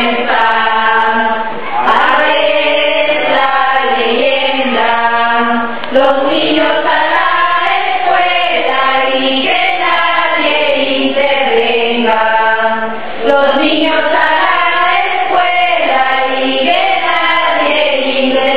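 Group vocal music: voices singing in a slow, chant-like choral style, with long held notes in phrases over a steady low drone.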